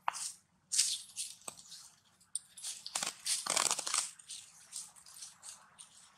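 Dry fallen leaves rustling and crackling in short, irregular bursts, loudest about a second in and again around three to four seconds in.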